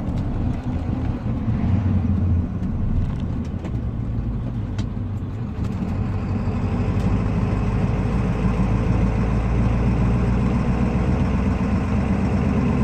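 Ford F-350's 7.3-litre Powerstroke V8 turbo-diesel heard from inside the cab, running steadily under load while towing a heavy trailer. It grows gradually louder over the second half.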